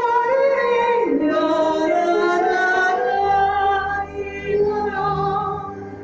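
Music with a woman's singing voice in long, held notes that slide down and back up about a second in, joined by a low sustained bass note around the middle, fading near the end.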